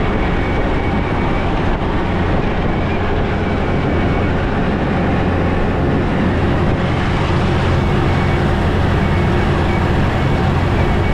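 1949 Willys CJ-3A's L134 four-cylinder flathead engine running as the Jeep is driven hard, with steady road noise and no let-up.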